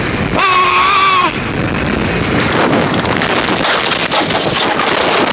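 A man's frightened cry, a single held high-pitched 'aaah' lasting about a second, over wind rushing on the microphone as a moped runs down a slope with the rider's hands off the bars. About halfway through comes a crash: rough scraping and knocking as the moped and the camera hit and tumble along the road.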